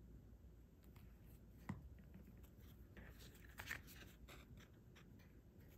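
Near silence, with faint handling sounds as a glued scrap of velvet ribbon is pressed onto a paper tag: a soft tap just under two seconds in and a few light ticks and rustles around three to four seconds in.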